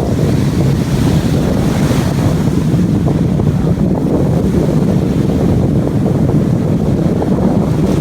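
Wind buffeting the microphone over the steady wash of surf at a beach, a constant low rumbling noise with no let-up.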